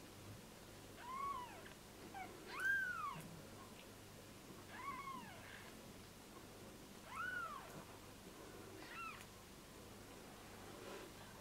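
Newborn British Shorthair kitten mewing: about five short, high-pitched cries, each rising and then falling in pitch, the loudest about two and a half seconds in.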